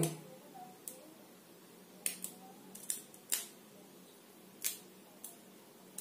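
Light, sharp clicks and taps of a test-lamp wire end touched against the terminals of a table fan's coil during a continuity check, about eight scattered clicks, some in quick pairs.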